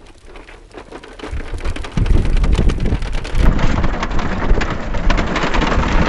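Dense crackling and rumbling of toy-truck wheels rolling over rough paving stones close to the microphone. It gets much louder, with a heavy low rumble, about two seconds in.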